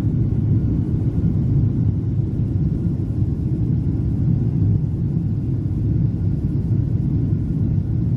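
Steady low rumble of an airliner cabin climbing after takeoff: jet engine and airflow noise heard from inside the cabin.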